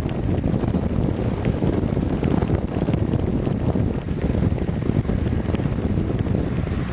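Wind buffeting the microphone, a steady low rumble, with the engines of a four-engine Airbus A340 airliner on final approach sounding beneath it.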